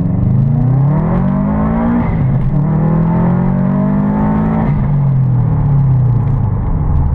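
Car engine accelerating hard through the gears, its pitch climbing, then dropping at an upshift about two seconds in and again just before five seconds, then climbing again.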